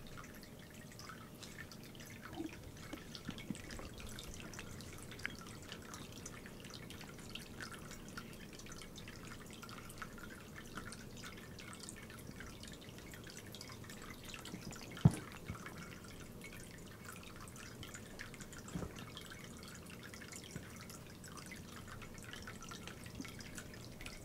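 Close-up of a cat grooming: faint scattered soft wet clicks and smacks of its tongue and mouth. One sharp knock about fifteen seconds in is the loudest sound.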